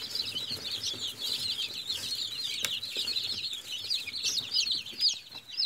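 A large brood of newly hatched chicks peeping all together: a dense, continuous chorus of short, high cheeps. One brief click a little before halfway.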